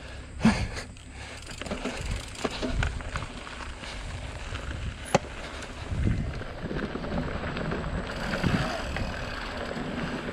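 Mountain bike rolling down a dirt trail: the tyres running over dirt and loose stones, with rattles and knocks from the bike over bumps, a sharp click about halfway through.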